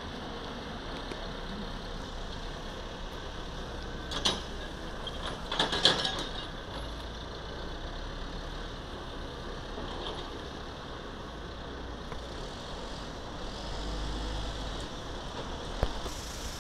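Diesel engines of a backhoe loader and a dump truck running steadily, with a sharp clank about four seconds in, a louder clatter of metal knocks around six seconds in, and a single clank near the end.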